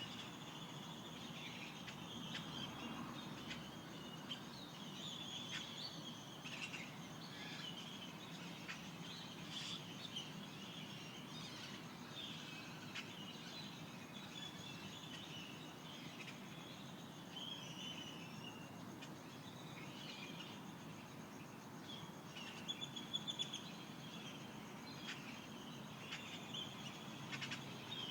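Mojave Desert dawn chorus: several small birds chirping and trilling in quick, overlapping short calls, over a faint steady background hiss, with a brief louder burst of calls about three-quarters of the way through.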